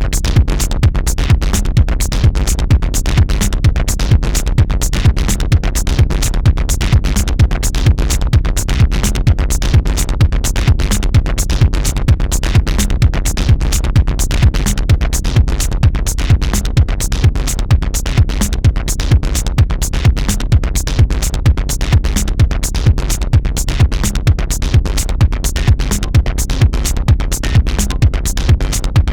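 Electronic dance music with a steady drum-machine beat.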